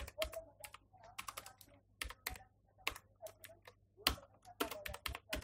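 Typing on a computer keyboard: quick keystrokes at irregular spacing, some in short runs.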